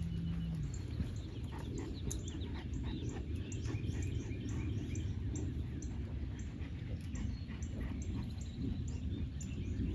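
Outdoor background of small birds chirping over a steady low rumble, with light rustling as branches brush close by.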